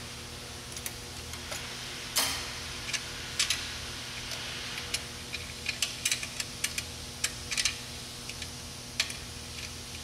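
Irregular sharp metal clicks and taps from locking pliers being handled on a car's exhaust pipe, a dozen or so in all, the loudest about two seconds in, over a steady low hum.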